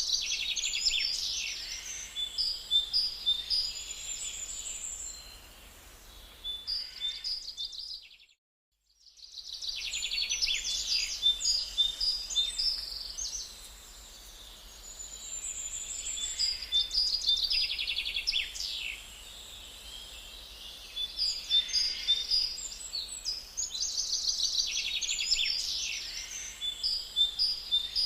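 Several songbirds singing and calling at once, a dense chorus of high chirps and rapid trills. It cuts out completely for about a second, a third of the way in, then resumes.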